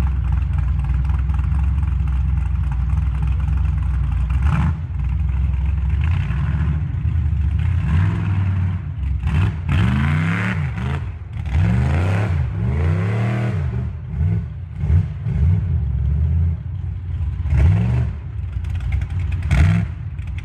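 Off-road 4x4's engine running steadily, then revved up and down again and again through the middle as it crawls over rough ground. A few sharp knocks and clatters come through, one early and two near the end.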